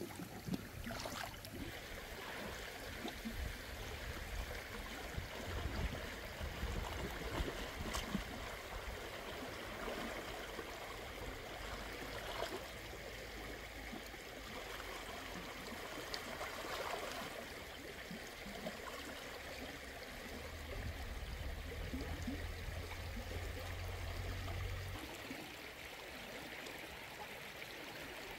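Shallow river water flowing, with splashing and sloshing every few seconds as someone wades and reaches into the water, over a low rumble that stops near the end.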